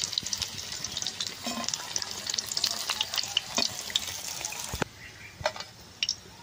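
Hot oil sizzling and crackling in a wok as gram-flour-battered chops on bamboo sticks deep-fry. The sizzle drops off sharply nearly five seconds in, leaving only a few faint crackles.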